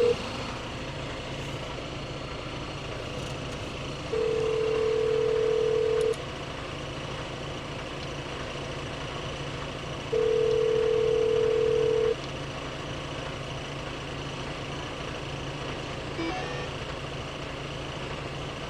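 Telephone ringback tone through a phone's speaker, ringing unanswered: steady two-second rings about 4 and 10 seconds in, four seconds of quiet between. Under it a semi truck's engine idling.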